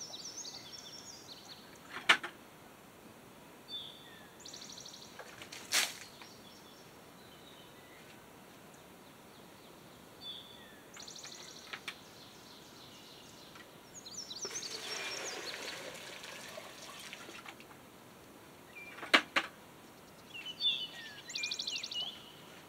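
Wild songbirds chirping in short high calls now and then, with three sharp knocks and, about halfway through, a few seconds of rushing noise.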